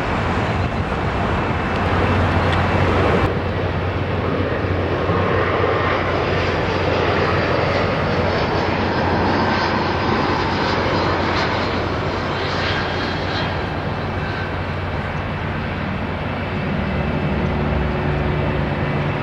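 Jet airliner engines on final approach, a Boeing 737 coming in low overhead, with a steady rushing hum whose engine tones strengthen in the last few seconds as it nears. Road traffic passes in the first few seconds.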